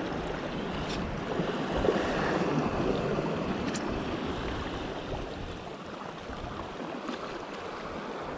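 Sea waves washing against a rocky shore, a steady wash that swells a little a couple of seconds in, with wind on the microphone and a couple of faint clicks.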